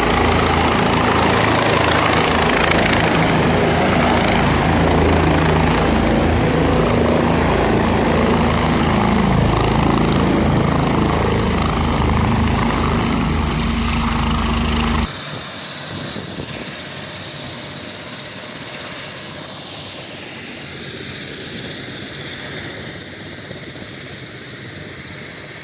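Helicopter running close by, loud and steady, with a constant low hum from the rotor and turbine. About halfway through, the sound drops suddenly to a much quieter level.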